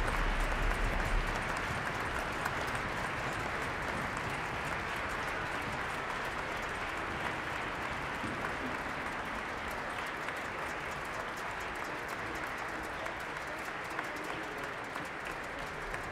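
Concert hall audience applauding, a dense, steady clapping that slowly fades.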